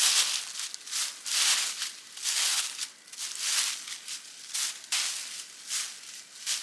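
Dry aspen leaves being scooped up and crushed by hand, crackling and rustling in repeated bursts about once a second.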